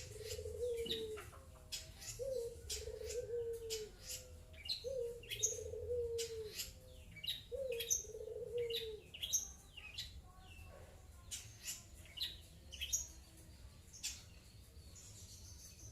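Caged long-tailed shrike (cendet) calling in short, sharp, high chirps that come in quick, irregular bursts. A low cooing phrase repeats about every two and a half seconds behind it and stops about nine seconds in.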